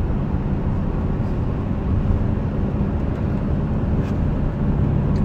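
Inside the cab of a moving light truck: steady engine hum and tyre and road noise at cruising speed.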